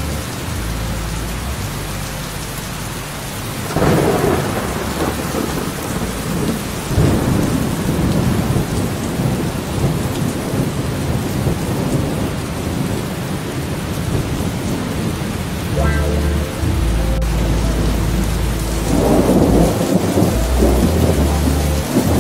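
Steady heavy rain with rolling thunder rumbles that swell several times, about four seconds in, again around seven seconds, and near the end.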